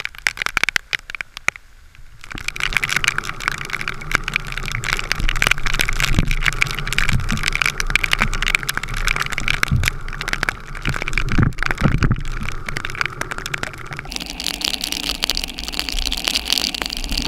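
Heavy rain falling on the water and the boat: a dense steady hiss packed with drop impacts that sets in about two seconds in, turning thinner and higher-pitched about fourteen seconds in.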